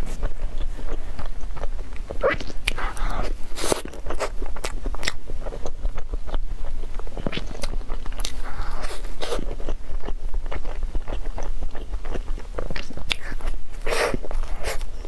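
Close-up eating sounds: biting and chewing a chocolate crepe towel-roll cake with cream, a run of small mouth clicks and soft chews, with a bigger bite about a second before the end.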